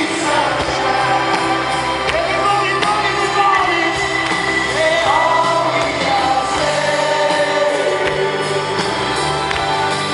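Live concert music heard from within the audience: a band playing loudly through a large sound system with a sung melody, and many voices singing together.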